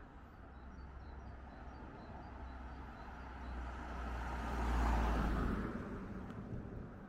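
A road vehicle passing by, its rumble swelling to a peak about five seconds in and then fading away.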